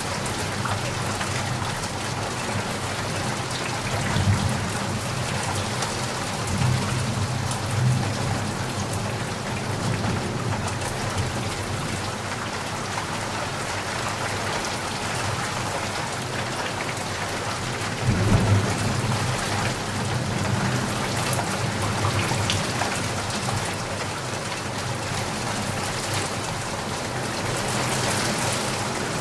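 Steady rain falling with a constant hiss, with low rumbles of thunder swelling several times in the first third and again just past the middle.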